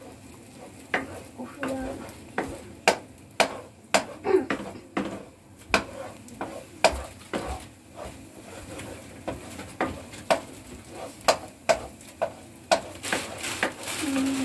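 Wooden spatula stirring and scraping scrambled eggs in a nonstick frying pan, with irregular knocks against the pan and the eggs sizzling in oil.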